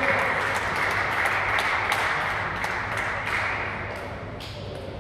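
A small group of spectators applauding in a sports hall, a patter of hand claps that dies away about three to four seconds in.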